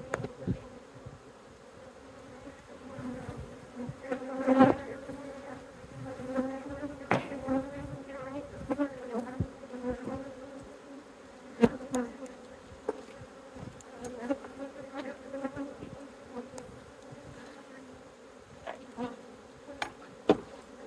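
Honeybees buzzing around an opened hive: a steady hum, with single bees' pitches wavering up and down as they fly close by. A few sharp knocks break in, the loudest about four and a half and twelve seconds in.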